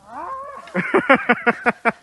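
A man's voice crying out: a drawn-out rising cry, then a rapid run of short voiced cries, about seven or eight a second.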